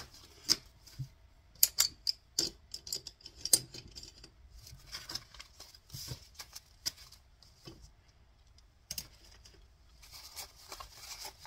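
A stack of paper dollar bills being handled and shuffled: crisp crinkles and sharp snaps in irregular clusters, with a quieter stretch about eight seconds in.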